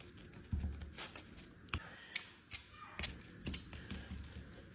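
Faint handling sounds of microwaved cheese-puff chicken patties being turned out of a bowl and handled with a utensil on paper: scattered light clicks and taps, with a soft thump about half a second in.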